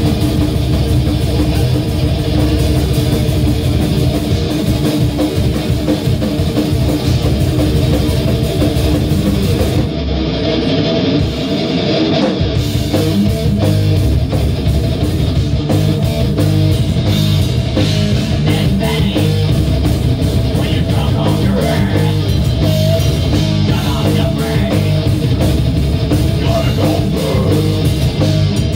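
Heavy metal band playing live: distorted electric guitars, bass guitar and drum kit. About ten seconds in, the cymbals drop out for a couple of seconds, then the full band comes back in.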